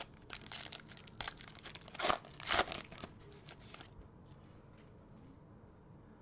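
Foil wrapper of a trading-card pack being torn open and crinkled by hand, a run of crackling crinkles with the two loudest tears about two seconds in, dying away after about four seconds.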